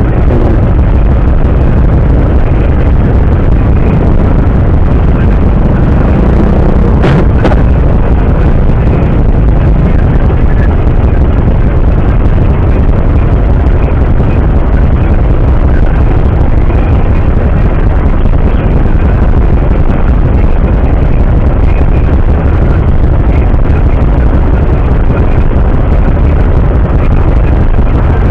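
Loud, steady low rumble of vehicle engines idling in stopped traffic, with a short sharp click about seven seconds in.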